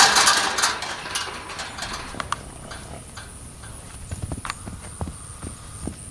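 A horse's hoofbeats as a leopard Appaloosa cross filly moves over dirt: scattered clicks and a few low thuds about two-thirds of the way in. It opens with a loud rush of noise lasting about a second and fading.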